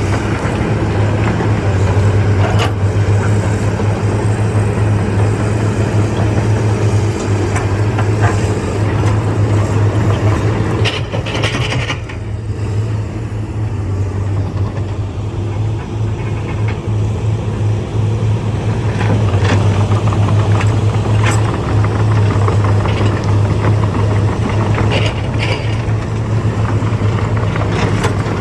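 Heavy diesel engine of a Komatsu bulldozer running steadily under load, with scattered metallic clanks and knocks. The engine eases off slightly for a few seconds around the middle.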